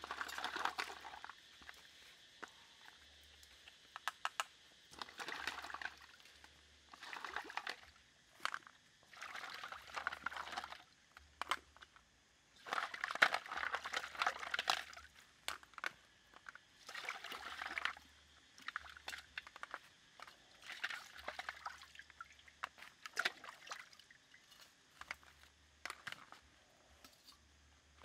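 Live mussels being washed by hand in water in a metal wok: repeated bouts of sloshing water and shells clicking together, each a second or so long, with short pauses between.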